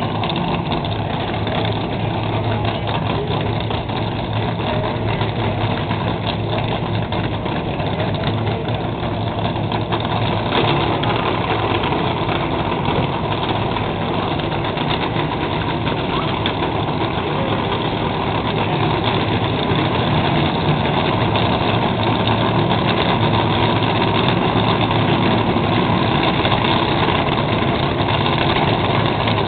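A/Fuel dragster engines running at idle at the starting line, a loud steady sound that grows somewhat louder in the last third.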